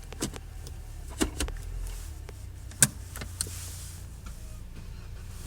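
Toyota Corolla running with a steady low drone and about six sharp, irregular squeaks, the loudest nearly three seconds in. It is the unexplained squeak that the owner finds only with the right wheel mounted and turning.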